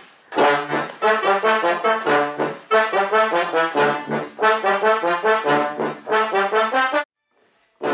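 Brass-led horn section playing a fast rhythmic passage of short, punchy notes from a film-score cue, cutting off abruptly about seven seconds in.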